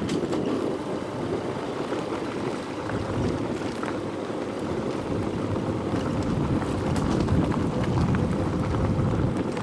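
A vehicle driving over a rough gravel dirt road: steady engine and road noise, with small rattles and wind on the microphone.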